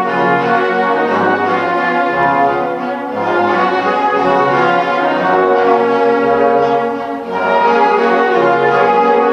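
Full orchestra playing classical music with brass to the fore over a moving bass line. It eases off briefly about seven seconds in, then comes back at full strength.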